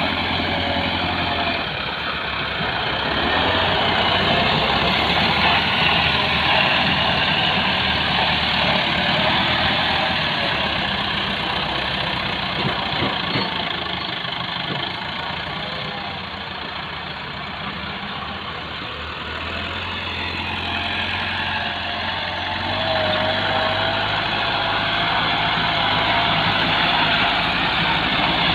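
Diesel farm tractor engine labouring as its front blade pushes a load of soil. The engine note sinks for a few seconds past the middle and rises again toward the end.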